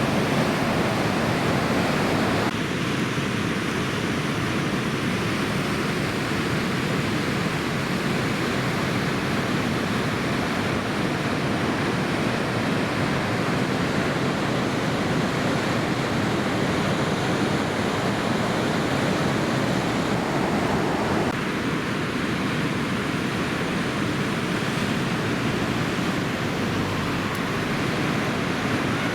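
Steady, even noise of heavy surf breaking, with an abrupt change in tone about two and a half seconds in and again about twenty-one seconds in.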